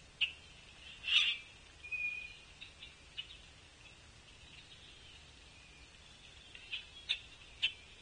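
Short scattered calls and sharp clicks from a flock of feeder birds, European starlings among them, over a steady high-pitched background buzz. The loudest is a burst about a second in, followed by a brief whistle, with a few more quick clicks near the end.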